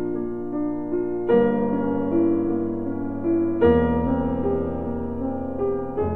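Background piano music: held chords changing about every two and a half seconds, with a simple melody over them.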